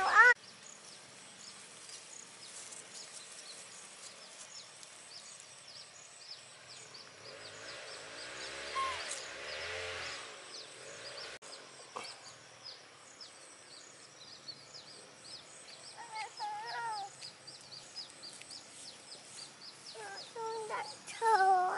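Outdoor ambience with rapid faint chirping throughout, broken by short pitched animal calls in quick runs: a loud run at the very start, a fainter one about three-quarters of the way through, and a loud one near the end.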